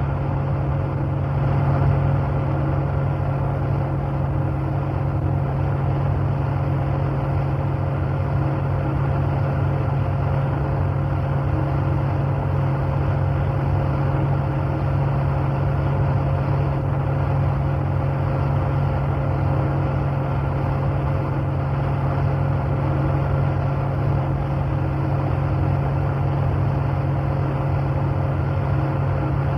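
Pickup truck cabin interior at steady highway cruising speed: a constant low engine and road drone with tyre and wind noise, unchanging throughout.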